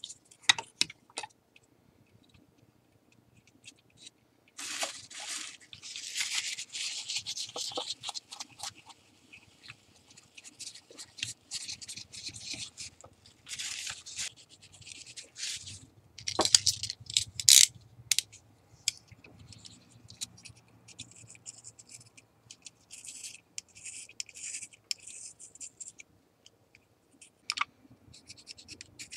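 Cloth rubbing and scrubbing over the glass of a multimeter's LCD, cleaning it after the polarizer film has been peeled off: spells of quick scratchy strokes with pauses between. A few sharp clicks about two-thirds of the way through are the loudest sounds.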